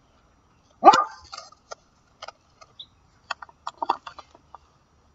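A small dog barks once, sharply, about a second in. Light clicks and taps follow as a spoon and a paper packet are handled over a plastic martini glass.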